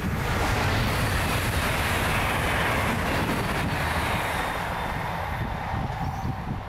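Train passing: a steady, loud rush of wheels on rail over a low rumble.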